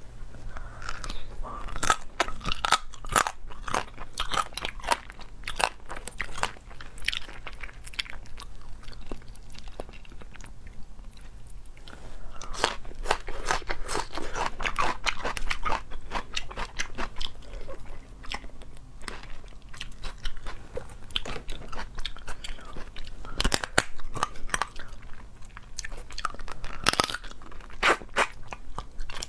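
Close-up crunching, biting and chewing on small cooked crabs, with many irregular sharp cracks of shell breaking between the teeth and fingers.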